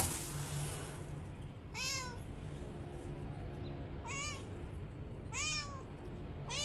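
A cat meowing four times, short arching meows a second or more apart. A brief click comes right at the start.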